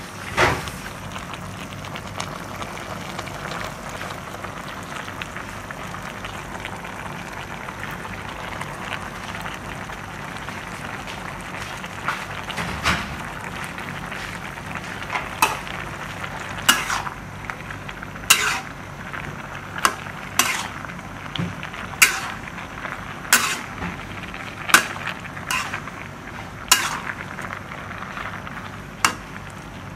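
Pork and vegetables sizzling steadily in a wok. From about halfway on, a metal ladle stirs them and clacks and scrapes against the pan about every second and a half.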